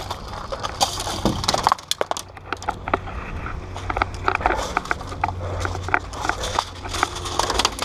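Airsoft gunfire and BBs striking, heard as scattered sharp clicks and knocks at uneven spacing, over a low steady hum.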